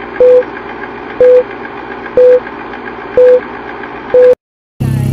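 Film countdown-leader sound effect: five short, loud, single-pitched beeps, one a second, over steady crackly noise, cutting off to silence after the last beep.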